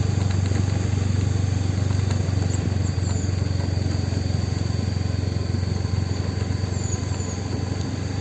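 Steady low drone of a vehicle on the move, with an even rumble of road and wind noise.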